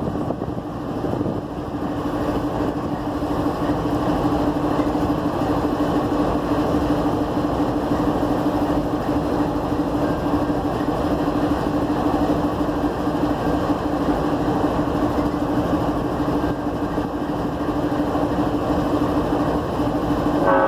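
Diesel-electric locomotive running while standing, a steady engine drone with a constant hum that grows a little louder over the first few seconds and then holds.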